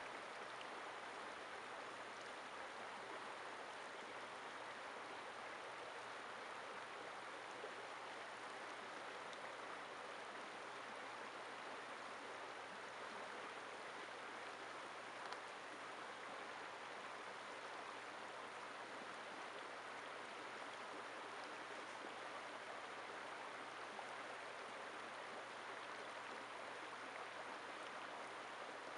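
Shallow stream running over rocks, a steady, even rush of water with one faint tick about halfway through.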